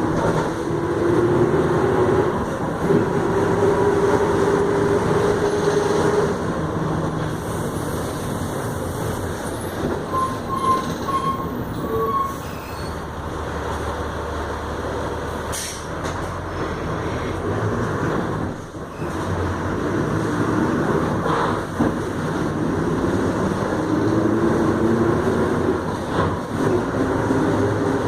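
VW 17.230 EOD city bus under way, its MWM 6.12 TCE turbo-diesel and driveline running, with a loud whining drone from the rear differential. The whine climbs slightly in pitch over the first few seconds, fades through the middle, and comes back near the end, with a few knocks and rattles along the way.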